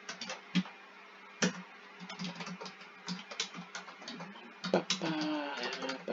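Typing on a computer keyboard: a run of quick key clicks with a few harder strokes. A low pitched tone comes in near the end.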